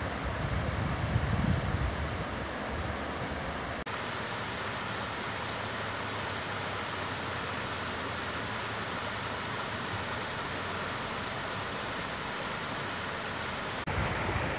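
River rapids rushing over granite rock: a steady rush of water, with wind buffeting the microphone in the first two seconds. From about four seconds in, a high, steady trill sits over the rush until just before the end.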